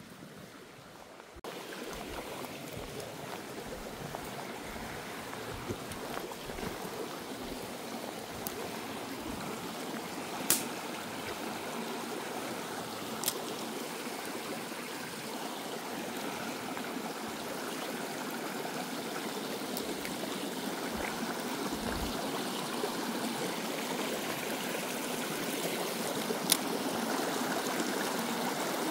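Water of a small stream flowing steadily, growing slowly louder, with a few sharp clicks.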